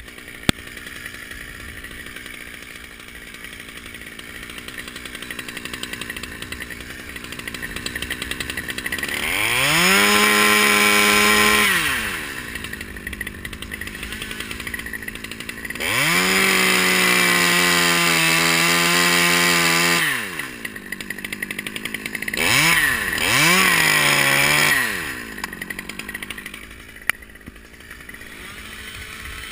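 Stihl top-handle two-stroke chainsaw idling and revved to full throttle: once for about two seconds about ten seconds in, again for about four seconds in the middle, then two short blips about three-quarters through, dropping back to idle each time.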